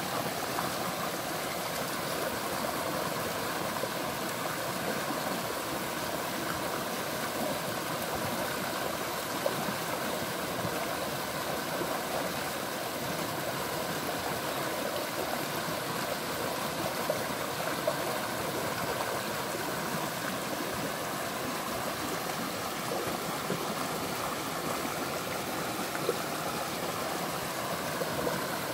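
Steady rush of flowing water, like a small stream, unchanging throughout, with a few faint ticks.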